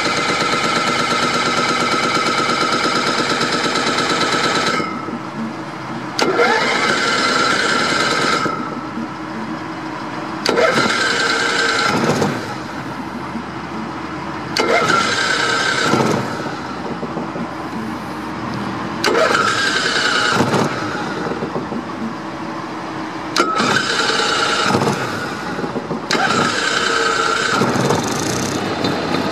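Onan Marquis 5500 RV generator being cranked by its electric starter on a cold start. There are about seven cranking attempts of two to four seconds each, separated by short pauses.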